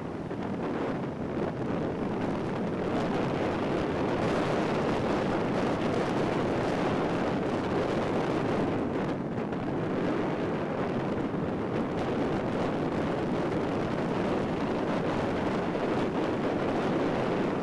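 Strong wind blowing across the camera's microphone, a steady rushing noise that grows a little louder about a second in.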